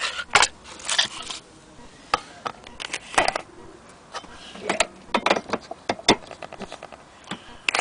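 Irregular clicks and knocks of metal parts being handled on an HMV 102 portable gramophone as its No. 5A sound box is fitted to the tone arm, with a quick run of small clicks about two-thirds of the way through.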